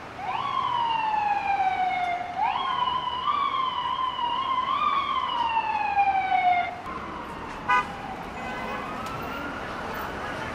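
Emergency vehicle siren wailing on a city street, its pitch sweeping up quickly and sliding slowly down several times before cutting off about seven seconds in. A short loud blast follows, over steady traffic noise.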